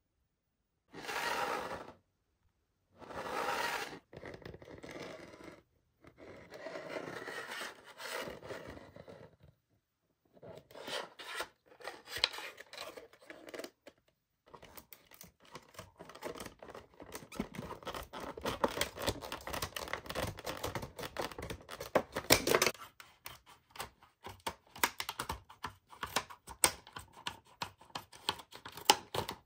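A clear plastic blister pack being handled, with short rustles and scrapes. From about halfway through, scissors cut through the plastic in a long run of short, sharp snips.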